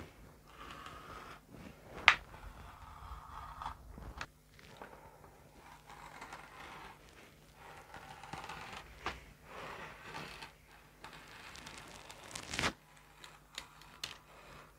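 Thin wood veneer strips rustling and scraping as they are handled and laid out on a wooden workbench, with a sharp knock about two seconds in and another near the end.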